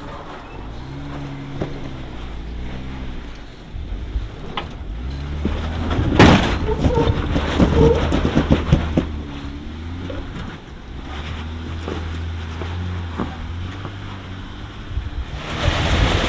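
Jeep engine working at low speed over rock, its pitch stepping up and down as the throttle is worked. A run of knocking and crackling comes from about six to nine seconds in, with wind on the microphone.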